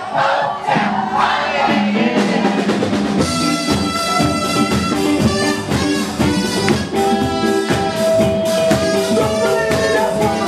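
A live band playing amplified rock: a singer's voice over electric guitar and a steady drum-kit beat, with long held notes in the second half.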